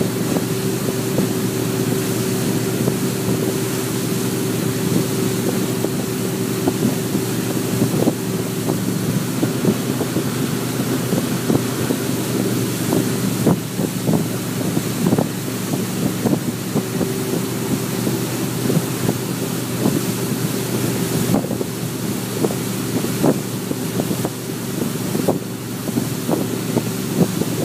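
Inboard engine of a Nautique wakeboard boat running steadily under way, a constant low drone, with the rush of water and wind buffeting the microphone.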